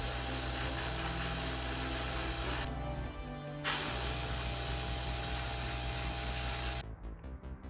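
Gravity-feed airbrush spraying paint in two hissing bursts of about three seconds each, with a break of about a second between them, cutting off shortly before the end.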